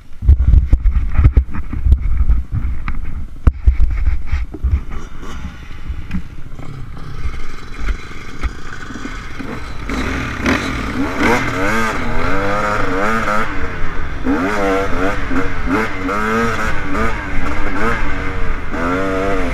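Dirt bike engine heard from on board, revving up and down repeatedly as the bike rides along a dirt trail. The first half is mostly low rumbling buffeting and clatter, with the engine pitch climbing and dropping clearly from about halfway.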